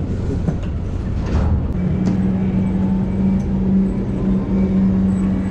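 Steady low machinery hum, with a constant low tone that grows stronger about two seconds in.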